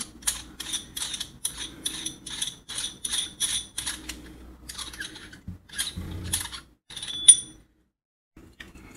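Metal coffee distribution tool and tamper clicking as its knurled collar is twisted to take it apart, a steady run of about three clicks a second. Then a few slower clicks and one sharp, ringing metal tick near the end.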